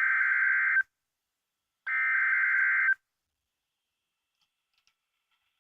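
Two bursts of an Emergency Alert System SAME header, each about a second long and about a second apart: harsh digital data tones that encode the coming alert's type and area.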